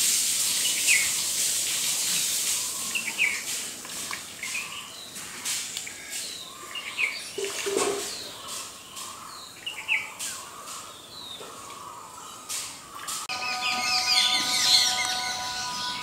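Wild birds chirping: many short, separate calls scattered over a steady high hiss. Near the end several steady, even-pitched tones come in alongside thicker chirping.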